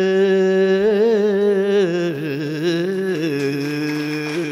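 A man's voice singing the drawn-out end of a Sinhala folk verse (kavi) unaccompanied, holding long notes with wavering ornaments and stepping down to a lower held note about two seconds in.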